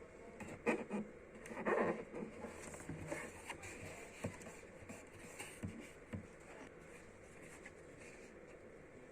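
Sticker sheets and their packaging being handled: intermittent rustling, scraping and light taps, busiest in the first few seconds and sparser after.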